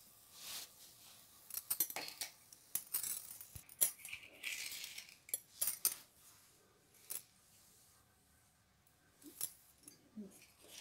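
Scattered light metallic clicks and clinks of a stainless steel plate being handled and set on a stone countertop, most of them in the first six seconds, then a few faint taps near the end.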